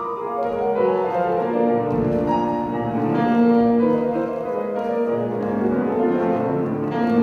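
Classical music led by piano, with some notes held long.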